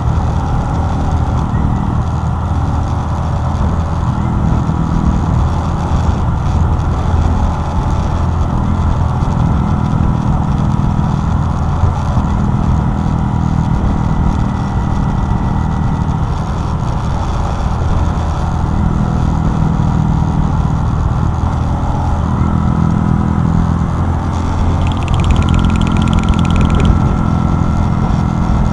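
Honda Monkey 125's single-cylinder four-stroke engine running steadily while riding, with wind noise. The engine note steps in pitch a few times in the last several seconds.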